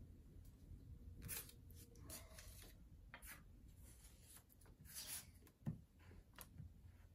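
Faint rustling and rubbing of construction paper as a glue stick is rubbed over paper circles and they are pressed down, in short scattered strokes, with a soft thump a little before the end.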